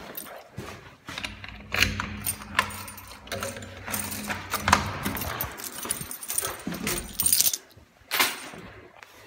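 Keys jangling and clattering while a locked mailbox is opened and mail taken out, with paper rustling and handling knocks in irregular bursts. The loudest knocks come near the middle and near the end.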